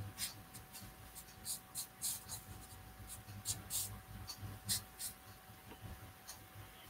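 Felt-tip marker rubbing across paper in short repeated strokes while shading in part of a drawing. The strokes stop about five seconds in.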